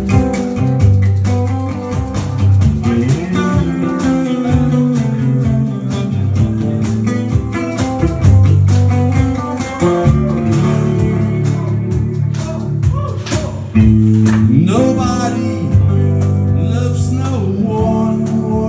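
Live blues played on electric guitar with a harmonica over it.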